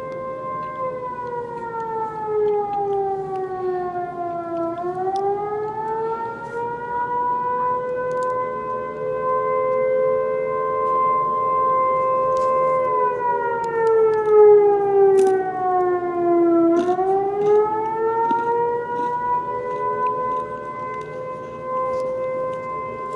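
General-purpose outdoor warning siren sounding a wail, the pattern used here for fire and EMS notification: a steady tone that slowly falls in pitch and rises back, twice.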